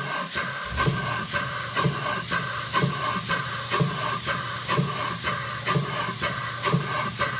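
Model Gothic beam engine running, its exhaust hissing in even strokes about two a second. A low hum comes in under it just before a second in.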